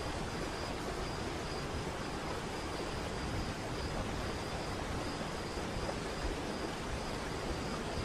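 Waterfall: a steady, unbroken rush of falling water, with a faint high note running through it.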